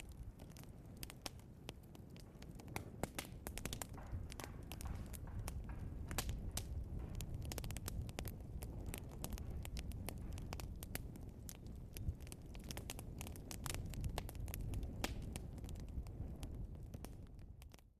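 Burning logs crackling and popping, with many irregular sharp snaps over a low steady rumble of the flames; the sound fades away at the very end.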